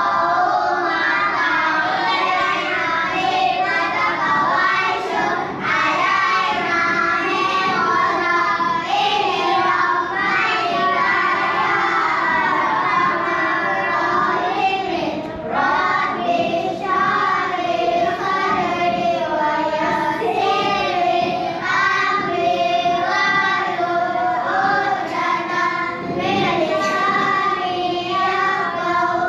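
A group of children singing a song together without a break.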